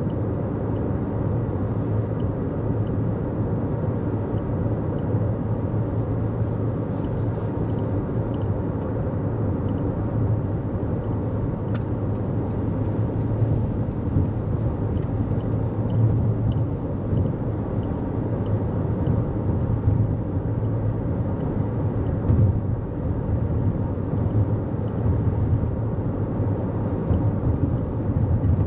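Steady road noise of a 2024 Toyota Corolla Cross cruising at highway speed: an even low rumble of tyres on pavement and engine.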